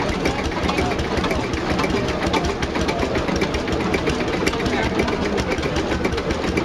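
Old four-cylinder Brons engine running steadily with a fast, even beat.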